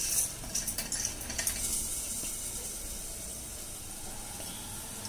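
Steady sizzle of onions frying in a covered pan, with a few light clicks in the first second or so as whole spices, cashews and garlic are tipped from a steel plate into a steel mixer jar.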